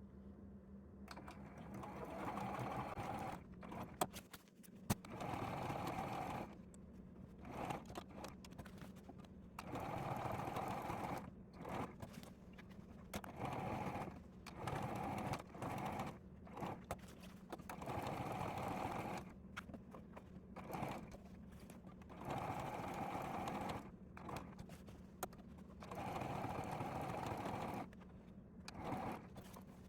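Sewing machine stitching in about a dozen short runs of one to two seconds each, stopping and starting with brief pauses between them.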